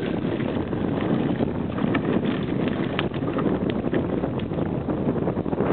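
Wind rushing over the microphone of a camera carried on a moving bicycle, mixed with bicycle tyres rolling over a gravel path and scattered small clicks and rattles.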